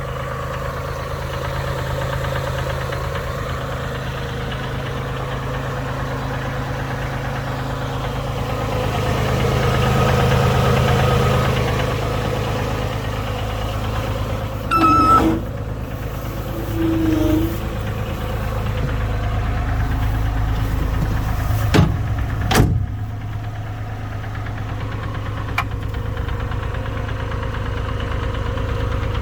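Bobcat S70 skid steer loader's diesel engine running steadily, swelling a little about ten seconds in. There are two short pitched sounds near the middle and two sharp knocks a little later.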